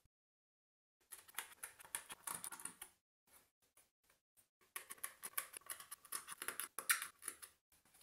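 Pre-cut slot pieces being poked out of a 3D paper puzzle's card base with a plastic tool: rapid crisp clicks and scratchy crackles in two spells, with a few scattered clicks between them. It starts after about a second of silence.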